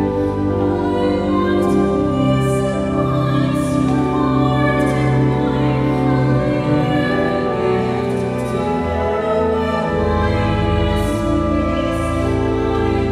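A woman singing a slow sacred song in long held notes, accompanied by cello and pipe organ.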